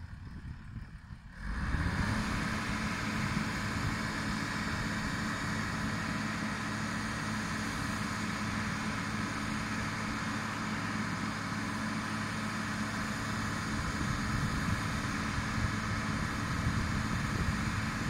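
Pile-driving rig's engine and hydraulics rising to high power about a second and a half in, then running at a steady drone with a steady whine on top.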